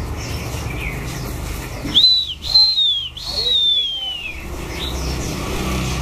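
A caged songbird whistling three loud, clear notes about two seconds in, each a short rise then a falling slide, the last the longest. Faint chirps from other birds and a low steady hum run underneath.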